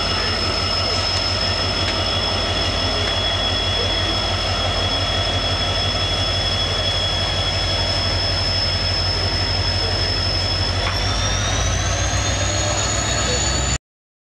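WDP-4D diesel-electric locomotive running, a low rumble under a steady high whine that rises in pitch about eleven seconds in. The sound cuts off abruptly near the end.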